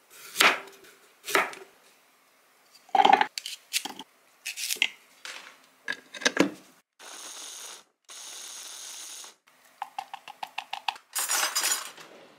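Chef's knife cutting a carrot on a wooden cutting board, several separate chops, then a small electric chopper runs in two bursts of about a second each, mincing carrot, chili and green onion. Near the end, quick light clicks and scraping.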